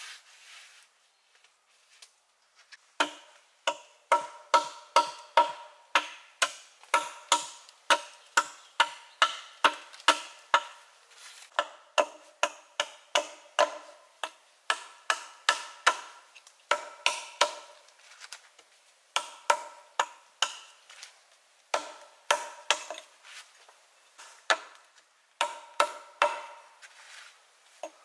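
Hatchet chopping into a log: sharp strokes about two a second in runs with short pauses, each ringing briefly with a clear knock. The strokes begin a few seconds in.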